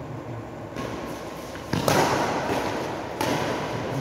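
Badminton rackets striking a shuttlecock in a rally, three sharp hits about a second or more apart, the first lighter and the later two louder, each echoing in a large hall.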